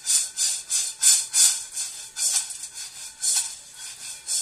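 Coffee beans rattling and sliding in a frying pan as it is shaken back and forth over the burner during dry roasting, about three swishes a second. After about two seconds the shakes slow and grow uneven.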